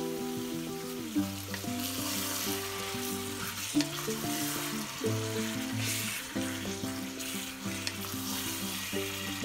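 Minced beef sizzling in a hot pan as it is stirred with a wooden spatula, which knocks against the pan a few times. Background music with held chords plays throughout.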